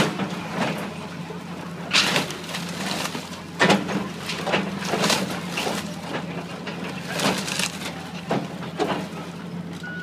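John Deere excavator engine running steadily while its bucket tears into a wooden building, with repeated sharp cracks and crashes of splintering timber and falling debris, the loudest near the start and about two and three and a half seconds in.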